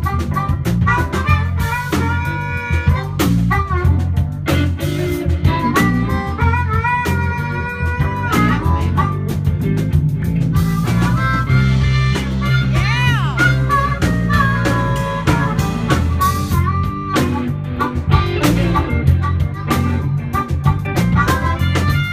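Live blues band: an amplified harmonica, cupped against a microphone, plays held notes and pitch bends, one note swooping up and back down about halfway through, over electric guitar, keyboard and drums.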